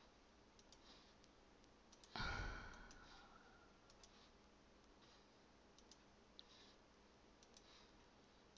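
Faint, scattered computer mouse clicks, a handful spread over several seconds, as items are selected from a software drop-down list. A short breath about two seconds in.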